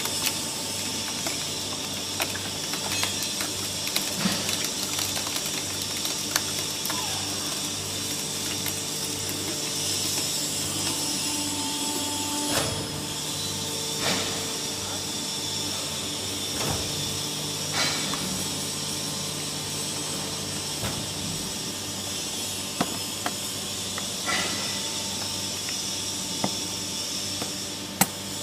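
Automatic aluminium can baler running: a steady machine hum with a low, evenly pulsing throb, broken by a few sharp clanks.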